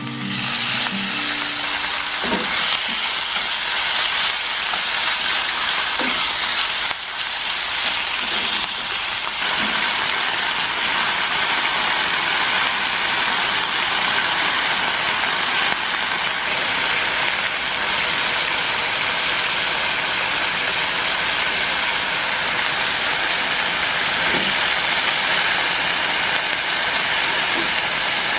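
Sliced pork frying in sesame oil in a nonstick pan: a steady, loud sizzle as it is stir-fried with chopsticks.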